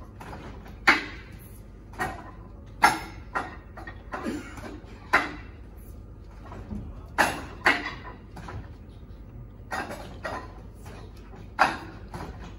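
A wooden Wing Chun training dummy struck by a student's hands and forearms: sharp wooden knocks at an uneven pace of about one a second, now and then two in quick succession.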